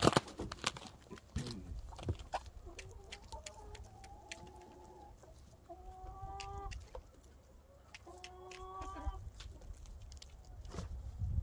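A flock of chickens clucking and calling, with a few drawn-out calls of about a second each and scattered sharp clicks and taps.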